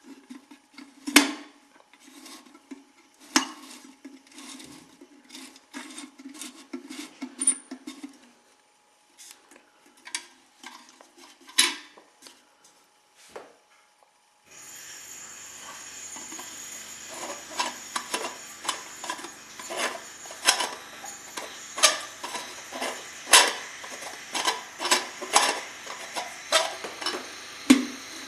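Metal clinks, taps and light clatter from handling the parts of a Valor paraffin heater as the burner is lifted and set back over the wick. A steady background hiss begins about halfway through.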